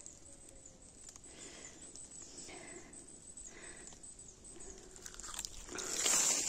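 Faint rustling of dry leaf litter and undergrowth, growing louder near the end as someone starts walking through it.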